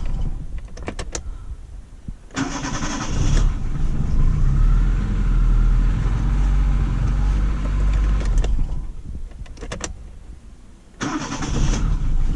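Daewoo Sens engine started twice on a rebuilt starter fitted with new brushes: a few clicks, about a second of starter cranking before the engine catches and runs steadily, then it stops and, after more clicks, is cranked and started again near the end. It starts quickly each time.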